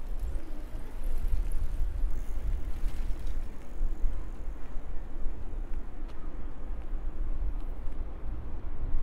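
Outdoor city ambience with a steady, uneven low rumble.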